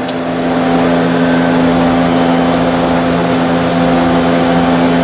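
Steady mechanical hum of running machinery, with several constant low tones, growing slightly louder just after the start.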